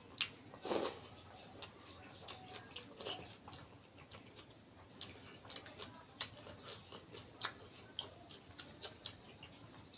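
A person chewing mouthfuls of rice and fish curry close to the microphone: irregular soft mouth clicks, several a second, with a few louder ones.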